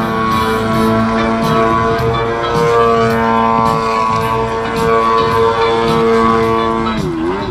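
Radio-controlled aerobatic model plane's engine buzzing at a high, steady pitch, which wavers up and down near the end.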